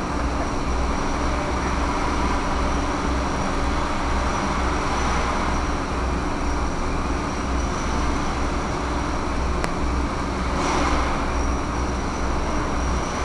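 Steady static hiss with a low hum that pulses in an even rhythm, the noise of an analog FPV video link's recording rather than any sound in the room.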